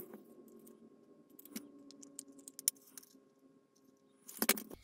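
Small plastic model parts being handled: scattered faint clicks and taps, with a short louder clatter near the end, as a sanded styrene piece is test-fitted into a plastic model hull.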